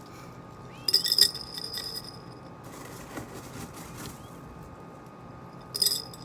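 Glass terrarium jar clinking as it is handled, twice: a sharp clink about a second in that rings on for over a second, and a shorter one near the end.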